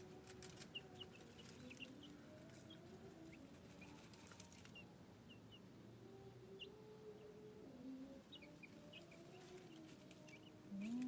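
Chicks peeping faintly in short high chirps scattered throughout, over lower drawn-out calls, with brief scratchy rustling at times. A louder low rising call comes near the end.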